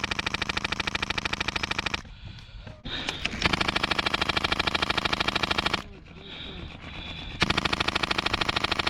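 Airsoft rifle firing on full auto in three long bursts of rapid, even shots, with short pauses between them.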